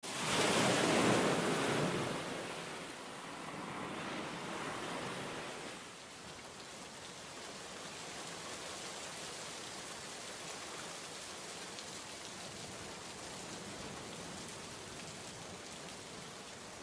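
Waves breaking on a rough sea, swelling twice over the first six seconds, then a steady hiss of rainfall.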